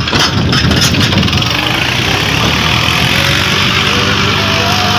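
Farm tractor's diesel engine running steadily at work, with a few knocks in the first half second.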